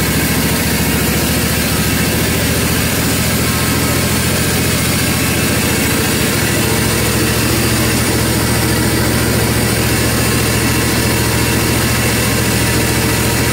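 Engine of a Hud-son Homesteader HFE30 band sawmill running steadily at an even speed.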